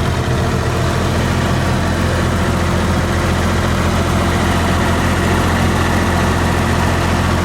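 Large engine idling steadily: a loud, even low hum that holds one pitch throughout.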